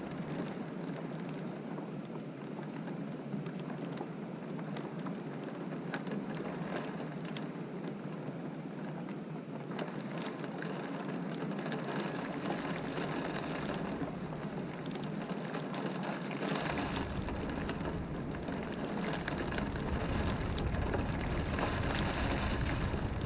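Wind-driven rain beating on a window: a steady hiss with the fine patter of drops, swelling in gusts. A low rumble comes in about two-thirds of the way through and stays.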